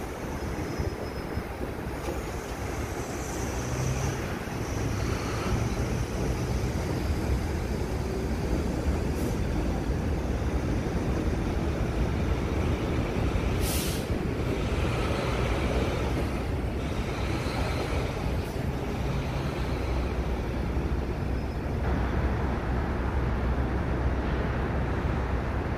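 R62A subway train on an elevated line, a steady low rumble of motors and wheels on the tracks that swells over the first few seconds and then holds. A brief sharp hiss comes about 14 seconds in.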